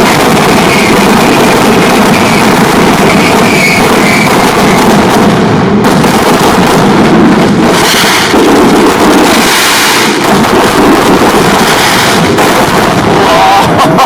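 Fireworks going off in a dense, continuous barrage of bangs and crackling, very loud and with hardly a break.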